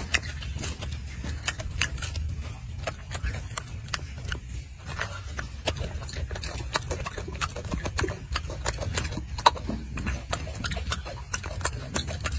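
Golden snub-nosed monkey eating a mandarin orange at close range: irregular wet chewing clicks and lip smacks, several a second, over a steady low rumble.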